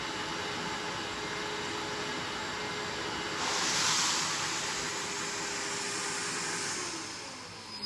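Wet/dry shop vacuum running, with a hand carpet extractor tool sucking rinse water back out of the carpet. About three and a half seconds in the suction hiss turns louder and brighter as the tool lifts off the carpet. Near the end the motor winds down, its pitch falling.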